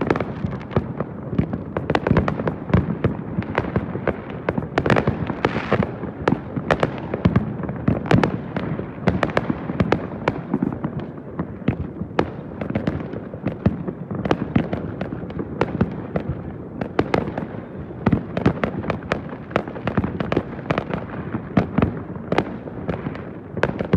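Fireworks going off in a dense, continuous barrage of sharp bangs and crackles, several every second.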